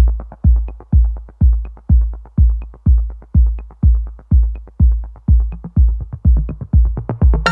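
Electronic dance music with a steady four-on-the-floor kick drum, about two beats a second. Higher synth parts come in near the end.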